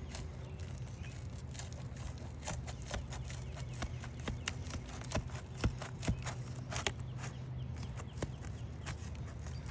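Irregular small clicks and cracks as the tabs of an aged asphalt shingle are pried loose from their sealant strip, bit by bit, over a steady low hum.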